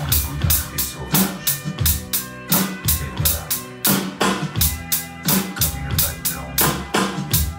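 Electronic drum kit played in a steady, even beat of kick and snare hits over a backing music track with sustained pitched notes.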